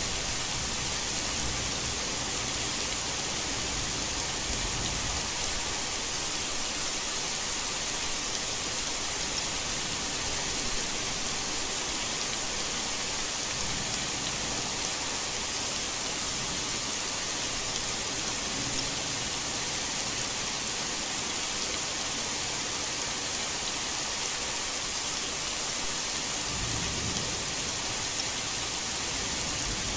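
Heavy rain falling steadily in a dense hiss, with low thunder rumbling now and then, most plainly near the end.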